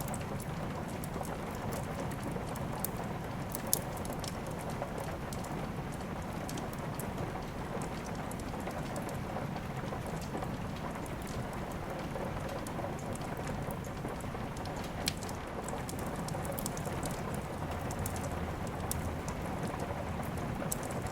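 Steady rain falling, mixed with a crackling wood fire: many small sharp crackles throughout, with two louder pops, about four seconds in and about fifteen seconds in.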